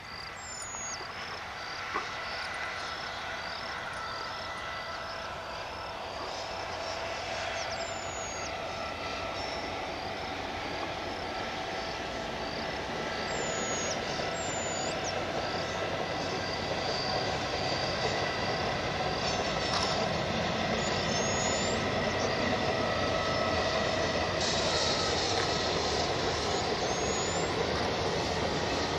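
Diesel-hauled passenger train approaching and running across a viaduct, its rumble growing steadily louder. Insects chirp in a steady rhythm of about two a second throughout, and a few short bird calls come through.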